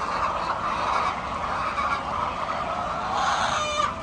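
A flock of chickens clucking together in a steady, dense chatter, with one louder, drawn-out call about three seconds in.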